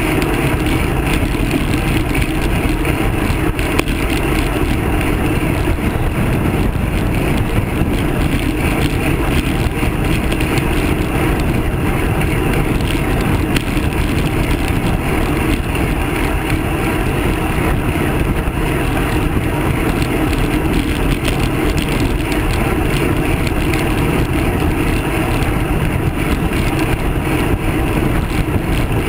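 Steady rush of wind and road rumble on a handlebar-mounted camera's microphone as a road bicycle rolls along a coarse asphalt road.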